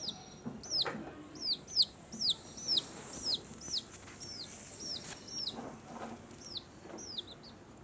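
A bird calling over and over in short, high chirps that fall sharply in pitch, about two a second.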